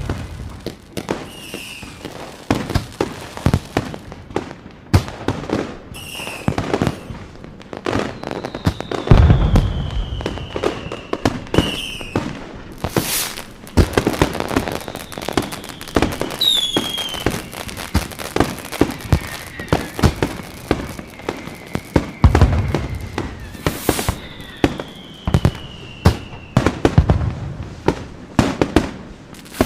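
Fireworks going off: a dense run of sharp bangs and crackles, with deep booms twice. Several whistling fireworks are heard, each whistle a long tone that slowly falls in pitch.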